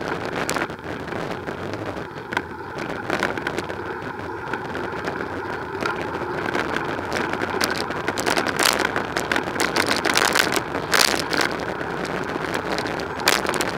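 Bicycle riding over paving slabs beside road traffic: a steady rush of traffic and riding noise, broken by irregular sharp knocks and rattles from the bike and its mounted camera jolting over the slabs, more frequent and louder in the second half.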